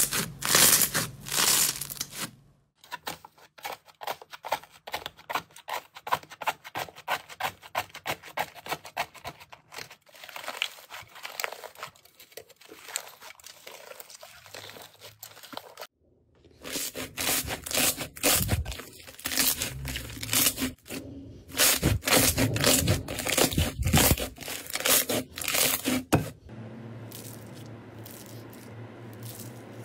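Hands squeezing, pulling and pressing slime, clip after clip: fast crackling and popping clicks, with a crunchy stretch in the second half. Near the end comes a steady soft hiss as fingers press into a bowl of foam-bead slime.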